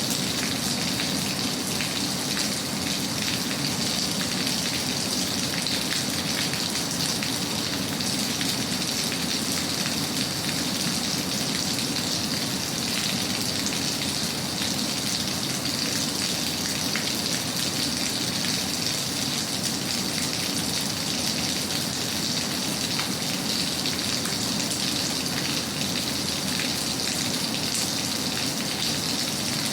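Steady rain falling: an even, continuous hiss scattered with fine ticks of drops hitting a surface.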